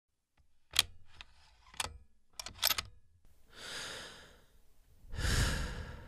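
A few sharp clicks, then a slow breath in and a longer, louder breath out.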